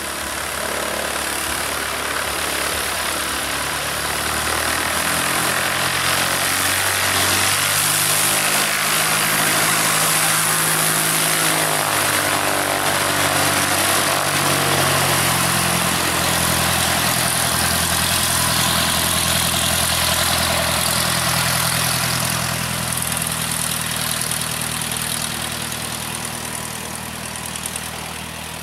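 Cessna 152's four-cylinder Lycoming piston engine and propeller running at taxi power as the plane taxis past, growing louder toward the middle and fading near the end, its note shifting a few times.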